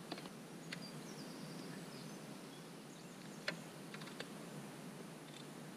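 Faint birds chirping over a steady low outdoor background, with a handful of short, sharp clicks and taps as kit is fastened onto a loaded touring bicycle.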